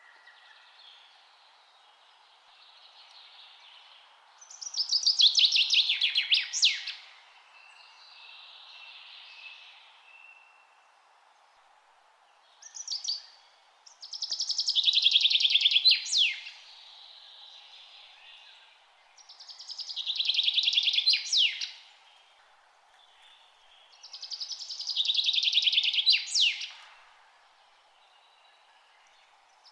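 A songbird singing the same loud song over and over: a fast trill about two and a half seconds long ending in a quick downward sweep, repeated four times about every five seconds, with quieter phrases between, over a faint steady hiss.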